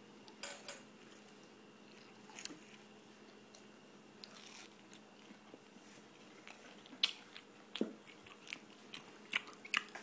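A person eating, biting and chewing food with faint scattered crunches and clicks, the sharpest near the end, over a faint steady hum.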